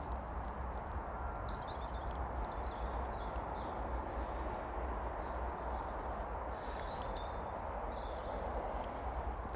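Outdoor allotment ambience: a steady rushing background with a low rumble, and small birds chirping briefly in two spells, early and again near the end.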